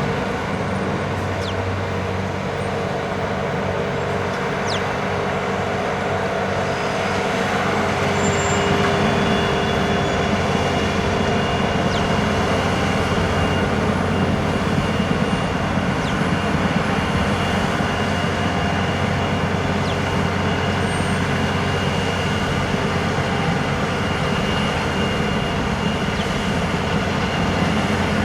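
A heavy vehicle's engine running steadily, with a low hum and a constant wash of road noise.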